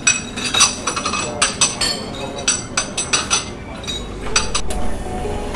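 Café bar clatter: a dozen or so sharp clinks of cups, saucers and glasses with a ringing tail, over a low background hubbub. Music comes in near the end.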